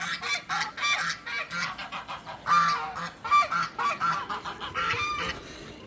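A flock of geese honking, many short honks in quick, overlapping succession, dying down near the end.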